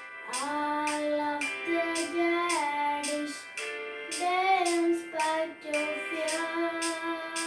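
A girl singing a prayer song over a light instrumental accompaniment, holding long notes and stepping between them.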